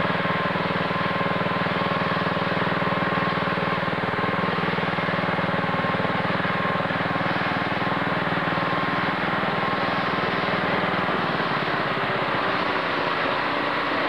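Walk-behind two-stage snow blower running steadily under load as it clears deep snow, its engine making a constant drone; the low part of the drone fades somewhat about eleven seconds in.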